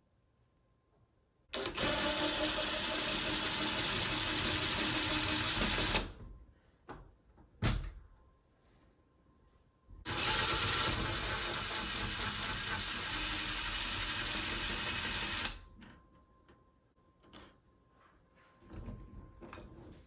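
A small electric motor runs steadily in two long runs of about four and five seconds, with a sharp knock between them and a few light clicks near the end.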